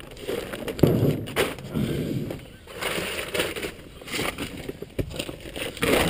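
Plastic tarp rustling and crinkling in irregular bursts as it is unfolded and spread out, with a few sharp crackles.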